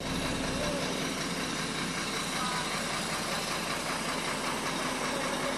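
Sinotruk Howo Max tractor head's diesel engine idling, heard from inside the cab as a steady, even hum.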